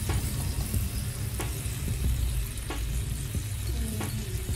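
Bacon strips sizzling in a nonstick frying pan: a steady frying hiss with three faint pops.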